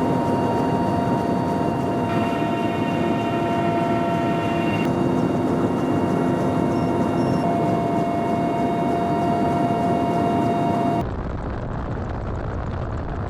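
Military helicopter's turboshaft engines and rotor running at flight power: a steady multi-tone turbine whine over a dense rush of rotor and air noise. About eleven seconds in, the sound cuts abruptly to a duller, more muffled take of the same kind of noise.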